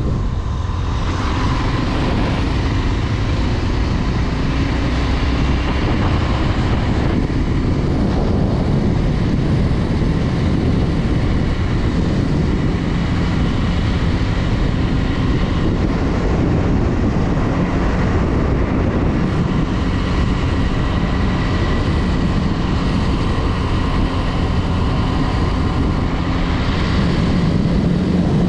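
Honda Twister 250 motorcycle's single-cylinder four-stroke engine running steadily while riding along, mixed with wind rushing over the microphone.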